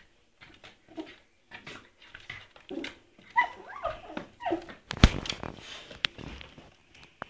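A puppy giving short whimpering yips and whines while play-fighting with a cat, with a couple of sharp knocks about five and six seconds in.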